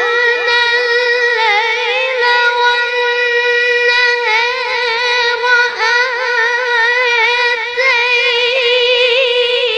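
A boy's voice chanting Quran recitation in melodic tajweed style, holding one long, high note with wavering ornamental turns.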